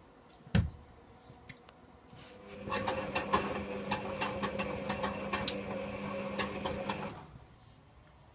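A single thump, then the Servis Quartz 6033 washing machine's drum motor runs for about five seconds, starting about two seconds in: a steady hum with a fast rattling clatter, cutting out shortly before the end, as the drum turns during the wash.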